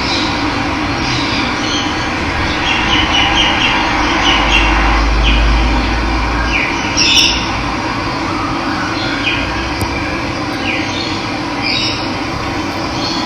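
Steady rushing of running water with birds chirping over it in short, repeated calls. A low rumble rises briefly near the middle.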